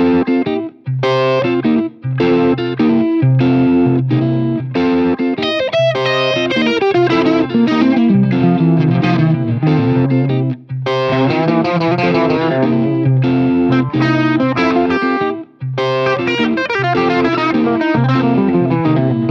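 Electric guitar playing a bluesy chord pattern in the key of C as a looper backing track, in repeating phrases with a few short breaks.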